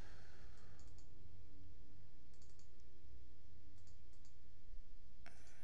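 A few short, faint computer mouse clicks, the last near the end the sharpest, over a steady low electrical hum.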